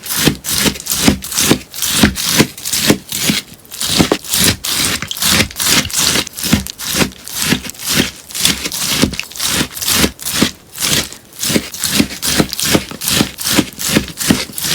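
Melamine sponge being cut again and again, with crisp, crunchy cuts at about three a second.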